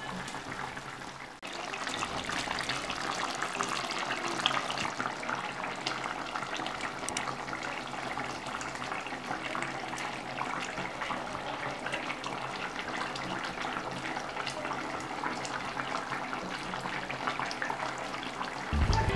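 A pot of curry chicken simmering: thick sauce bubbling steadily, with a dense patter of small bubbles popping. The sound drops out briefly about a second and a half in, and music starts right at the end.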